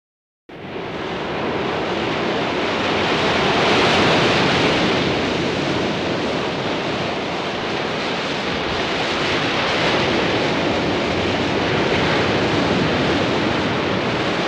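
Ocean surf breaking on coastal rocks: a steady rush of waves that starts out of silence about half a second in and swells and eases.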